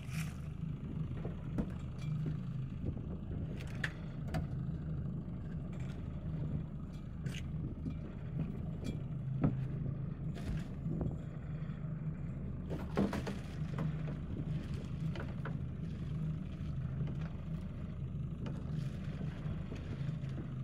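A boat's engine running steadily with a low hum, with scattered clicks and knocks on top.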